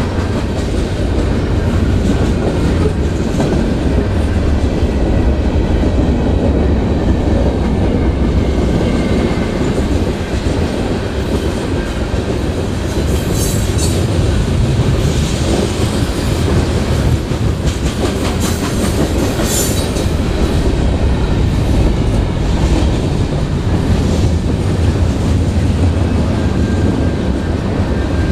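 Freight cars of a CN mixed freight train rolling steadily past close by, a continuous heavy rumble with the clatter of wheels over the rails. There are a few brief high-pitched wheel squeals about halfway through.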